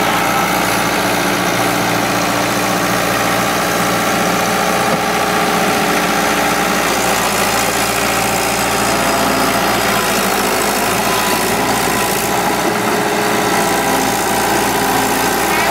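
Kobelco crawler excavator's diesel engine running steadily while the machine drives down off a lowboy trailer onto the ground.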